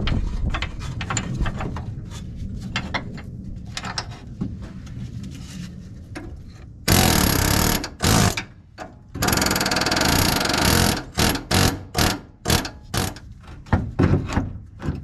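Pneumatic air hammer driving against the pitman arm's tapered joint at the center link to pop it loose. Lighter knocks and rattles come first. About halfway through it fires in loud bursts of rapid hammering, the longest about a second and a half, then in a run of short bursts about two a second.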